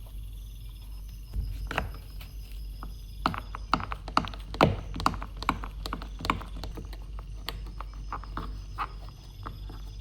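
An irregular run of sharp clicks and knocks, like hard objects being handled and set down, starting about a second and a half in, coming thickest and loudest in the middle and thinning out near the end, over a low steady hum.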